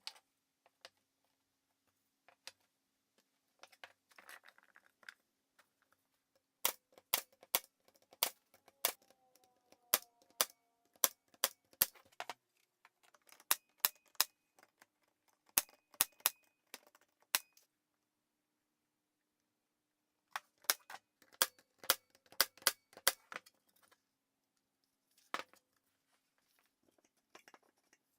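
Ridgid 18-gauge brad nailer firing brads into wood, sharp shots in quick runs of about two a second, in three bursts with a single last shot near the end.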